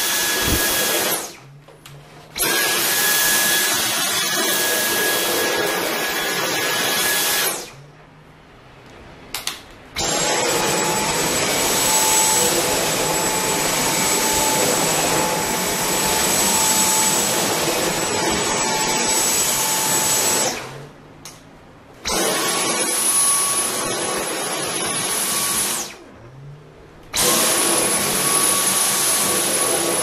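Dyson Cyclone V10 Animal cordless stick vacuum running over a shaggy carpet: a loud suction hiss with a high motor whine. The motor stops four times for a second or two and starts again, and its whine is at a different pitch after each restart.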